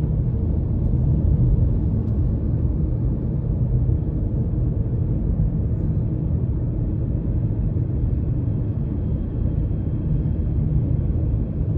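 Steady low rumble of a car driving along a city road, heard from inside its cabin: engine and tyre road noise.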